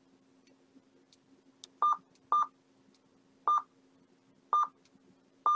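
Uniden BCD536HP scanner giving five short, same-pitched key beeps, one for each press as its settings menu is scrolled, starting about two seconds in, over a faint steady hum.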